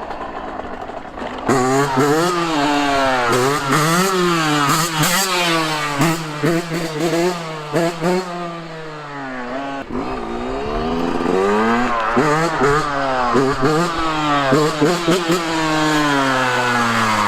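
Yamaha YZ125 two-stroke dirt bike under way through its new stock header and silencer. The engine note climbs and drops over and over as the throttle is worked and gears change, eases off about halfway through, then climbs again.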